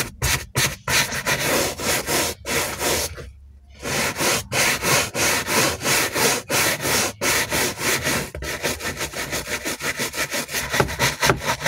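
Soft-bristled brush scrubbing a leather car seat wet with all-purpose cleaner (APC), in quick back-and-forth strokes with a short pause about three seconds in.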